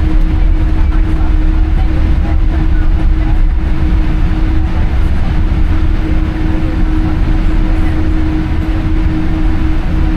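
Cabin noise of a Boeing 787-8 airliner taxiing, heard from a window seat over the wing. There is a steady low rumble, with a constant hum from the jet engines at taxi power.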